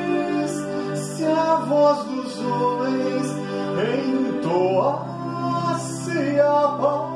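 Electronic keyboard playing held chords, with a man's singing voice rising and bending in pitch over it, most clearly in the second half.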